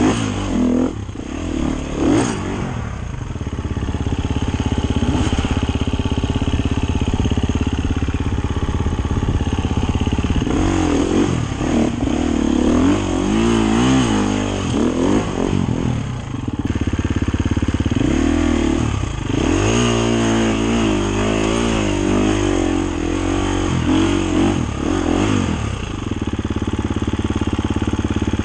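Dirt bike engine running under hard enduro riding, revving up and down in repeated throttle blips. The busiest spells of rising and falling revs come about ten seconds in and again around twenty seconds in.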